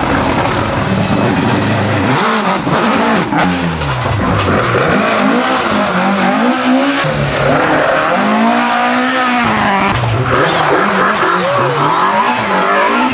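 Mk2 Ford Escort rally cars driven hard through a tight corner, their engines revving up and down repeatedly as the drivers lift off, change gear and accelerate away. Two cars pass in turn, the second from about ten seconds in.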